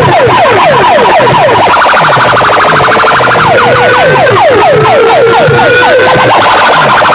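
Stacked horn loudspeakers of a DJ sound-box system blasting siren-like electronic effects at full volume: rapid falling sweeps about four a second over a pulsing low beat, with two long, slowly rising tones through the middle.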